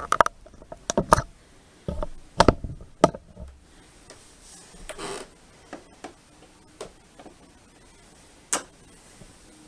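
Irregular clicks and knocks of a plastic TV base stand and a screwdriver being handled while the stand is screwed onto the back of a flat-screen TV. There are several sharp clicks in the first three seconds, a soft rustle about five seconds in, and one more sharp click near the end.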